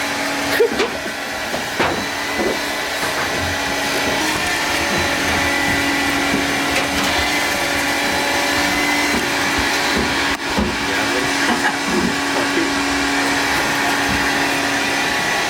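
Vacuum cleaner running steadily with a constant motor hum, dipping briefly about ten seconds in.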